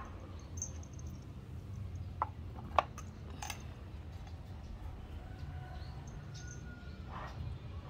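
A stainless steel food bowl set down into a wooden feeder stand: two sharp knocks a little over two seconds in and lighter clicks just after, over a steady low hum.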